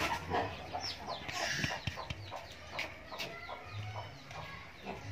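Chickens clucking in short repeated calls, with a few soft knocks and rubbing from a loudspeaker being handled.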